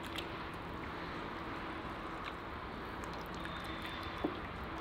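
Cooking oil being poured in a steady stream into a kazan, with a single light knock about four seconds in.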